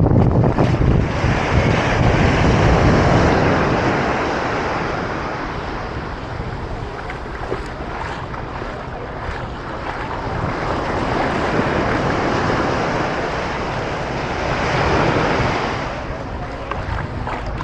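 Ocean surf breaking on a sandy beach, the wash swelling and fading several times, with wind buffeting the microphone.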